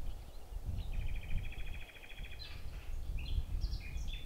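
Songbirds singing in woodland: a fast, even trill of repeated notes starting about a second in and lasting about a second and a half, then several short chirps near the end, over a low rumble.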